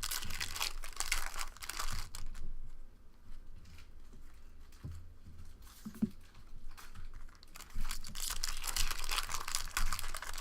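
Foil wrappers of 2014 Upper Deck football card packs crinkling and tearing as packs are opened. The rustling comes in two spells, one at the start and one near the end, with quieter handling and a few light clicks between.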